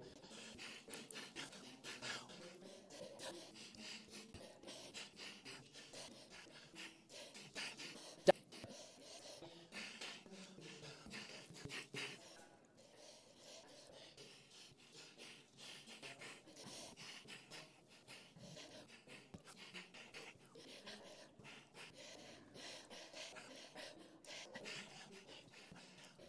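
Breaths, quick inhalations and mouth clicks from debaters at close lectern microphones, spliced into a rapid choppy string with the words removed. A sharp click about eight seconds in is the loudest sound.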